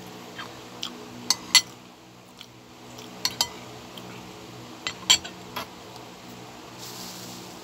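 Metal spoon and fork clinking and scraping against a ceramic bowl while food is scooped up: several sharp clinks, often two close together, over a steady low hum.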